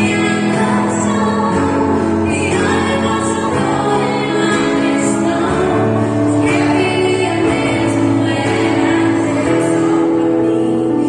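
Two women singing a Brazilian gospel song in long held notes over steady instrumental backing.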